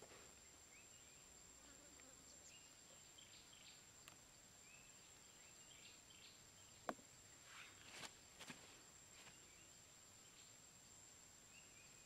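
Near silence: faint outdoor ambience with a steady high-pitched insect drone and faint short chirps. One sharp click about seven seconds in, then a few soft rustles over the next second and a half as the trap's bamboo sticks are handled.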